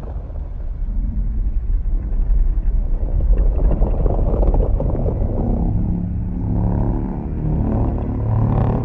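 A deep, continuous rumbling monster sound effect made for Godzilla Earth, with a low droning tone joining it about six seconds in.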